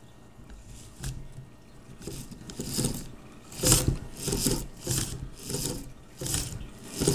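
A hand handling a 3D printer's carriage close to the microphone: a run of short, irregular rubbing scrapes, which grow louder after the first couple of seconds.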